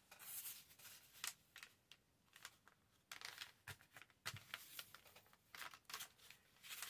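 Faint, scattered rustles and light taps of paper and corrugated cardboard being handled as a piece of corrugated cardboard is pressed onto a journal page as a stamp to print lines.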